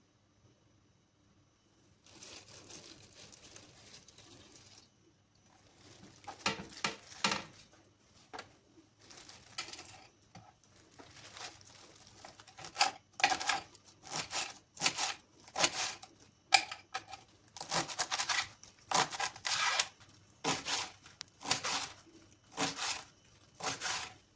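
Kitchen prep work on fresh greens: a few seconds of a steady rustling hiss, then a run of sharp ripping or cutting strokes, roughly one a second and growing louder toward the end.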